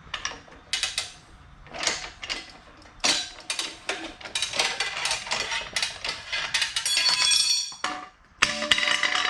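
Metal clanking, scraping and rattling from a motorcycle wheel being worked on a manual tire changer. There are irregular knocks and scrapes throughout, and brief metallic ringing about seven seconds in and again just before the end.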